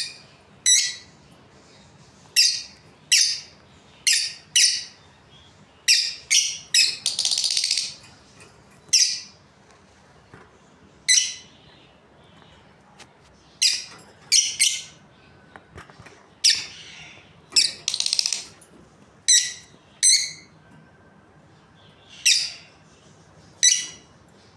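Budgerigars calling: short, sharp chirps at irregular intervals, with two longer, harsh chattering calls of about a second each.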